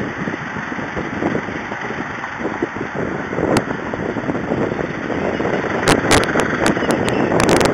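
Car and traffic noise in dense slow traffic: a steady rumble of engines and tyres. About six seconds in comes a run of sharp clicks.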